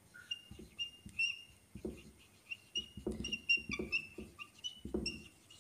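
Whiteboard marker squeaking and tapping on the board while writing: a run of short high-pitched squeaks, each a fraction of a second, mixed with soft knocks of the pen strokes.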